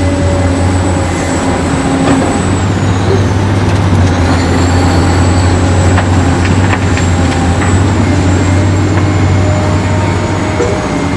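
Remote-control toy excavator and dump truck running: a steady low drone with a thin high whine that dips briefly, and scattered small clicks.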